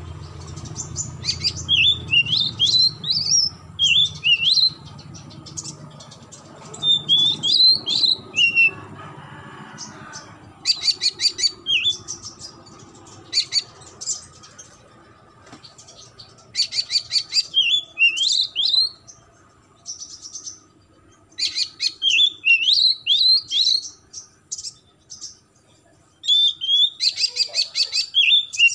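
Oriental magpie-robin singing in repeated bouts: each is a fast run of rattling notes mixed with short whistled phrases that slur up and down, with short pauses between the bouts.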